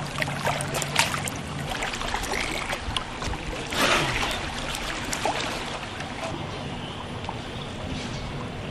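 A boat moving through floodwater: water splashing and sloshing against the hull, with scattered knocks. A louder splash comes about four seconds in, and a low steady hum stops a little under two seconds in.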